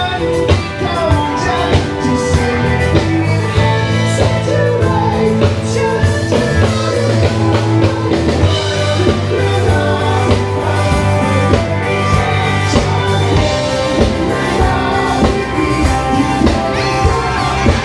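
Live band playing a rock song, a singer over electric guitar, bass and a steady drum beat.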